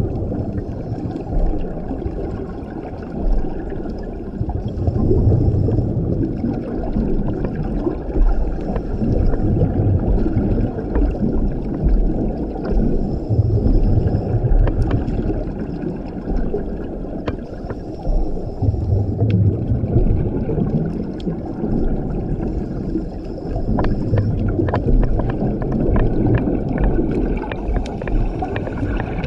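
Scuba diver breathing through a regulator underwater: each breath hisses through the regulator, then the exhaled bubbles rumble and gurgle out, about one breath every five seconds. Faint scattered clicks sound in the background.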